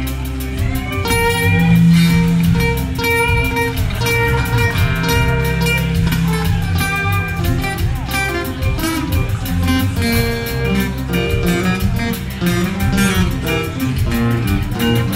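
Live acoustic band playing an instrumental passage: two acoustic guitars strumming and picking, with a fiddle bowing alongside.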